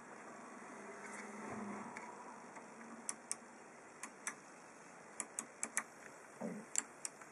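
Push-button function switches on the front panel of a Technics SH-8020 graphic equalizer clicking as they are pressed and released: light, sharp mechanical clicks, mostly in close pairs, about ten in all, starting about three seconds in.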